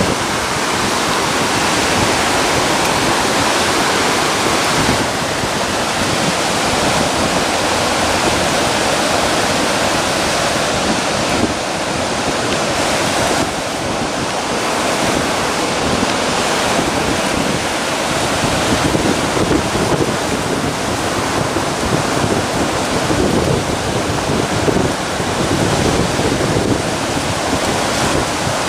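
Steady rush of sea water and surf washing over a shallow rocky reef, with wind buffeting the microphone.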